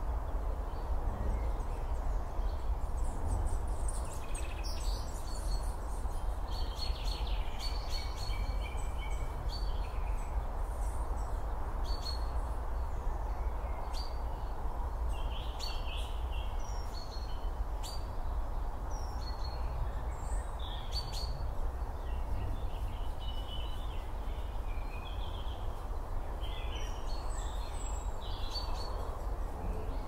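Several wild birds chirping and calling on and off, short high notes scattered throughout, over a steady outdoor noise bed with a low rumble.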